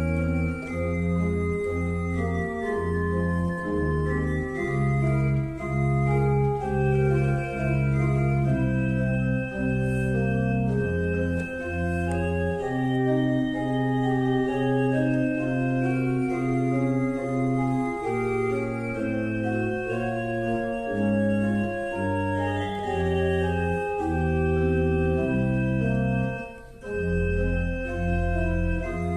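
Organ playing held chords over a bass line that steps from note to note about once a second. The music breaks off briefly near the end and comes back in on a low bass note.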